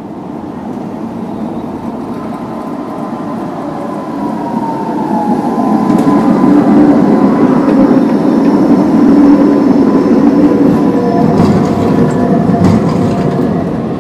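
Tatra high-floor tram with trailer passing close on street track: the wheel and rail rumble and motor whine grow louder over the first few seconds, with a whine gliding down in pitch as it approaches, stay loud through the middle, and ease off near the end as it moves away.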